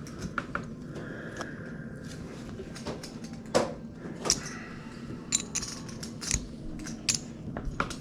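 Poker chips clicking and clacking irregularly against each other, over a steady low room hum.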